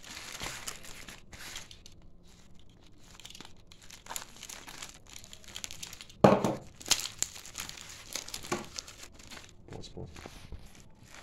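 Crinkling and rustling of a taped paper-and-plastic mailing package as it is handled and turned over by hand, with a sharp, louder rustle about six seconds in and a few smaller ones after.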